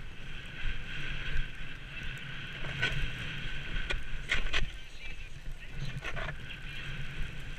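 Ski bike's skis scraping and hissing over choppy, chopped-up snow at speed, with wind rushing on the microphone. Louder crunches come about three, four and a half, and six seconds in as the skis hit bumps and throw up snow.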